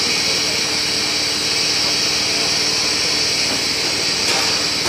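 FTPE-1200 bubble film machine running steadily: an even hiss, strongest in the high range, over a faint steady hum.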